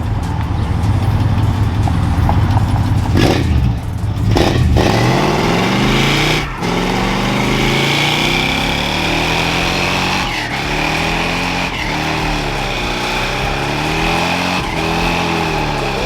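Car engine with a heavy low rumble, then revved over and over, its pitch rising and falling every second or two.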